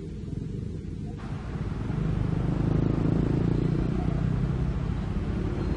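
Komatsu PC200 crawler excavator travelling on its steel tracks, its diesel engine running with a deep, steady sound that grows louder about two seconds in as the machine comes closer.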